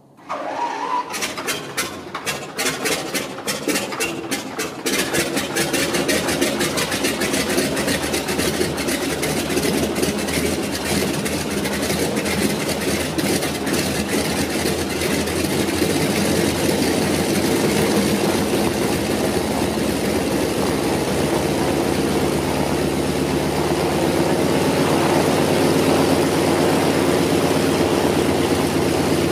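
Nine-cylinder Pratt & Whitney R-985 Wasp Junior radial engine of a Spartan 7W Executive starting from cold. It is turned over briefly, then catches with a few seconds of separate, uneven firing strokes, and settles into a steady idle about five seconds in.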